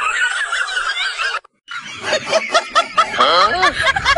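High-pitched, squeaky comic sound effects, like sped-up giggling. They break off for a moment about a second and a half in, then come back as a rapid run of clicks and rising-and-falling squeaks.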